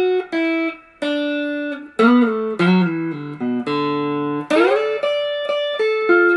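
Electric guitar played with a pick: a single-note lick in D major pentatonic, standing in for the original slide-guitar intro. Several notes are bent or slid up into pitch, in short phrases with brief gaps.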